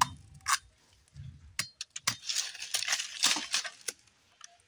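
A cacao pod and a machete being handled on a stone: a few sharp clicks and clinks, then about two seconds of crackling and scraping.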